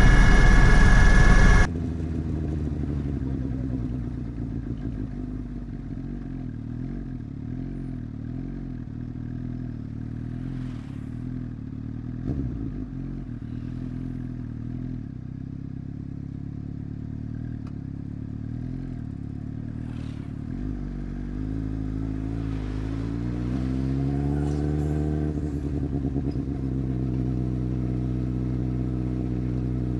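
Superbike engine running at low revs, a steady engine note that rises in pitch about two-thirds of the way through and then holds higher. At the very start a louder rushing noise cuts off abruptly.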